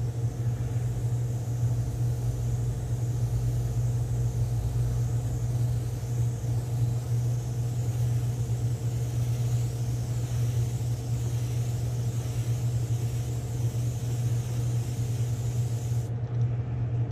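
Airbrush spraying blue paint in light coats onto a lure blank: a steady hiss of air and paint that stops about a second before the end. A steady low hum runs underneath throughout.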